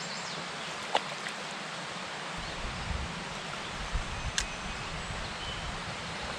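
Outdoor ambience: a steady hiss, with wind rumbling on the microphone from a couple of seconds in and a few short faint clicks.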